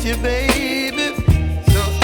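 Background pop music with a steady bass beat and a gliding melody.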